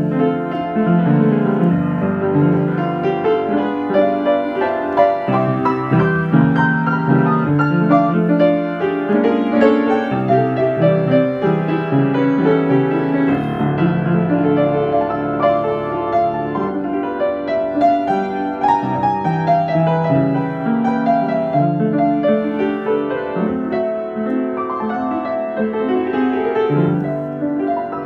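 Solo upright piano playing a slow piece of sustained chords and melody notes, with a run of notes descending near the end.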